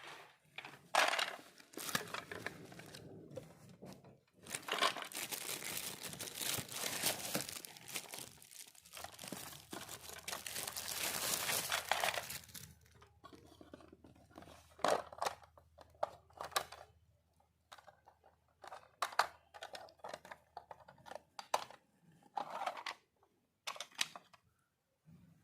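Packaging being torn open and crinkled by hand. A long stretch of continuous rustling in the first half gives way to scattered short crackles and clicks.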